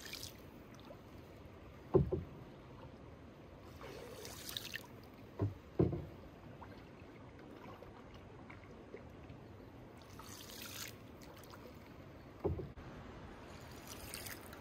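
Solo paddling of an open canoe with a wooden paddle on calm water: a brief swish of water with each of a few strokes, and four short dull knocks of the paddle against the canoe.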